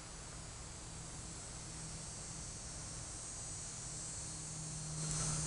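Faint steady background hiss with a low, even hum underneath, growing a little louder near the end; no distinct knocks or handling sounds.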